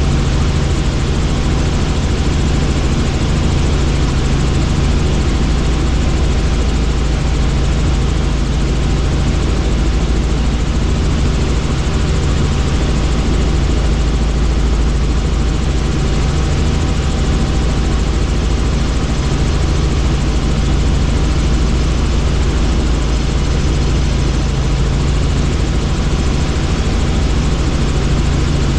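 Helicopter in flight, its engine and rotor making a loud, steady drone that does not change.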